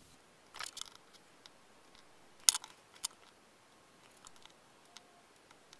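Hand soldering of header pins on a small circuit board: mostly quiet, with a few faint, sharp clicks and taps of the soldering iron and solder wire against the pins, the loudest one about two and a half seconds in.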